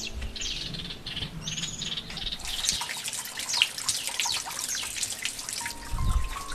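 Birds chirping, then water pouring from a bamboo spout and splashing onto stone. There is a soft low thump near the end.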